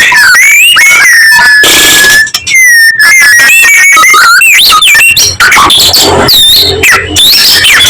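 White-rumped shama singing loudly: a long, clear whistle held for about two seconds, then a quick, varied run of rising and falling whistled notes and chips.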